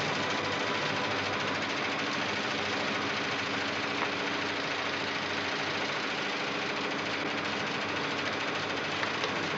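Card-sorting office computer running, a steady rapid mechanical clatter with a couple of sharper clicks, about four and nine seconds in.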